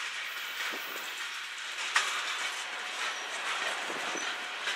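Freight train boxcars rolling past, steel wheels on the rails giving a steady rolling rush with scattered clicks, and one sharp clack about two seconds in.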